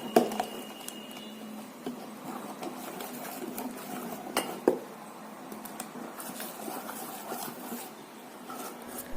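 Spoon stirring thick rice-and-lentil batter in a bowl: an uneven wet scraping, with a few sharp clicks of the spoon against the bowl.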